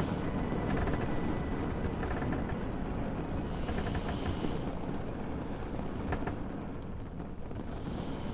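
Steady ambience of a low vehicle rumble under a hiss of rain, with a few faint clicks and one sharper click about three-quarters through.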